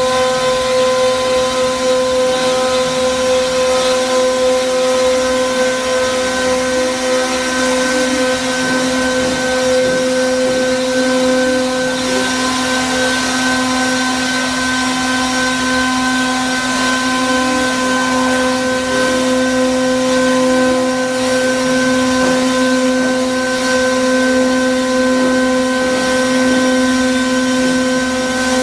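CNC router's 3 kW air-cooled spindle running steadily: a constant multi-tone whine over a steady rush of air from its cooling fan.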